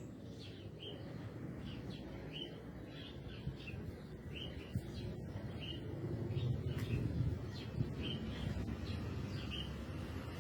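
A bird giving short, repeated chirps about once or twice a second over a low, distant rumble that swells slightly around the middle.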